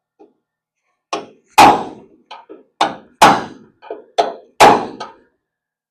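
Hammer blows on steel: three pairs of strikes, a lighter tap followed each time by a heavy blow, roughly a second and a half apart, each with a short ring. The blows are seating a steel front torque box into the car's body.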